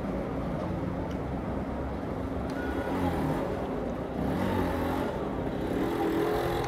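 Street traffic: vehicle engines running steadily, with one vehicle swelling louder about four seconds in.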